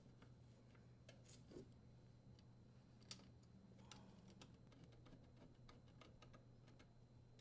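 Near silence with a low steady hum and a few faint scattered clicks and ticks, the kind of small metal clicks made while screwing a cover plate back on.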